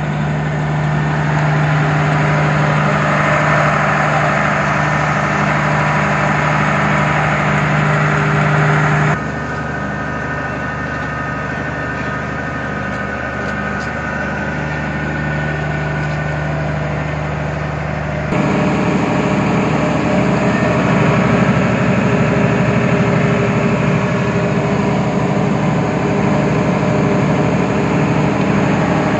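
Cummins diesel engine of a 100 kVA generator set running steadily inside its sound-attenuated enclosure, a constant even hum. The level drops suddenly about nine seconds in and comes back up about eighteen seconds in.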